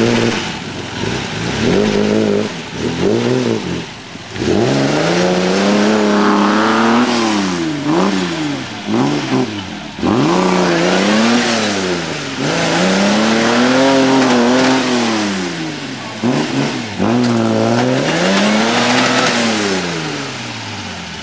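GAZ-69 off-road vehicle's four-cylinder petrol engine revving up and down again and again, held high for a few seconds each time, with brief drops in revs about four, ten and seventeen seconds in.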